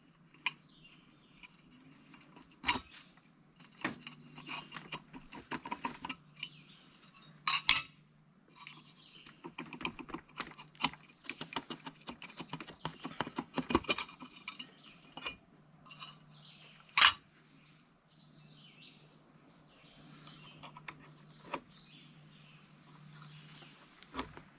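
Metal tiller tines and their locking pins clinking and clattering as they are slid off the multi tool's tiller shaft. There are a few sharp metal knocks, with runs of rattling in between.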